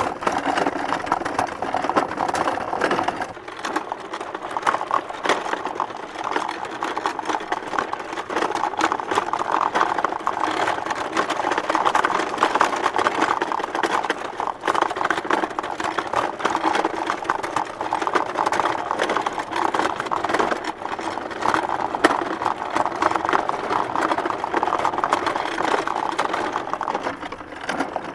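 Small wooden hand cart pulled along a bumpy dirt road, its wooden body and wheels rattling with dense, rapid bangs and knocks throughout, easing briefly a few seconds in.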